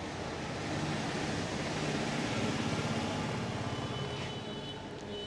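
Road traffic: a passing vehicle's noise swells to a peak about halfway through and then fades away.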